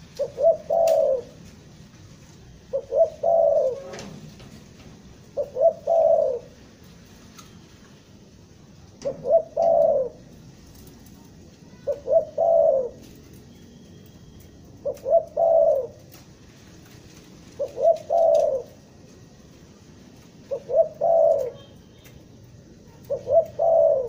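Spotted dove (tekukur) cooing in the stuttering 'gagap' style. Each phrase is a few short clipped notes running into one longer coo, repeated nine times about every three seconds.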